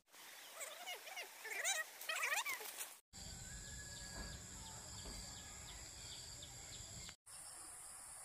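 Birds chirping with quick rising and falling calls for about three seconds. Then, after an abrupt cut, a steady high-pitched insect drone, like crickets, over a low rumble. A second cut near the end leaves a steady, higher insect drone.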